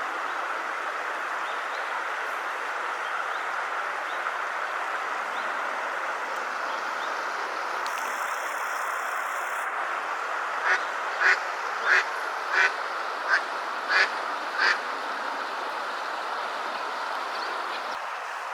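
Eastern spot-billed duck quacking, a run of seven loud quacks a little over half a second apart, beginning about ten seconds in, over a steady background hiss.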